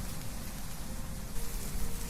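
Wind blowing through trees, leaves rustling steadily, with a low rumble of wind.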